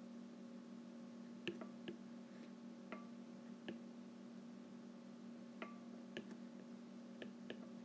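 Stylus tip tapping and clicking on a tablet's glass screen during handwriting: about nine light, irregular clicks over a faint steady hum.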